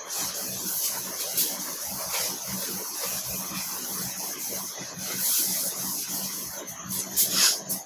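Whiteboard duster rubbing across a whiteboard in repeated wiping strokes, a scratchy swishing hiss that comes in uneven surges.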